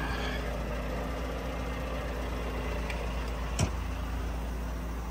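Mack Anthem semi-truck's diesel engine idling steadily, with a single sharp knock about three and a half seconds in.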